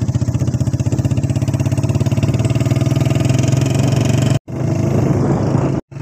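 Motorcycle engine running steadily on the move, a rapid even beat of firing pulses. The sound drops out abruptly for an instant twice near the end.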